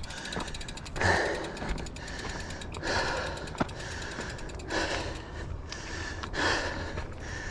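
A mountain biker's heavy, gasping breaths, one hard breath about every two seconds, from the exertion of riding. A steady low rumble runs underneath, with a couple of sharp clicks.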